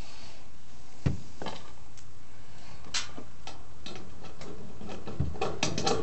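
Scattered clicks and knocks of handling as a new four-prong dryer power cord is brought to the dryer's rear terminal block, over a steady background hiss. The sharpest knock comes about a second in, with a quick cluster of small clicks near the end.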